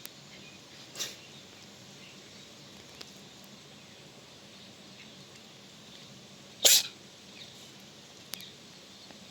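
A cat sneezing: a faint sneeze about a second in and a loud, sharp sneeze about seven seconds in.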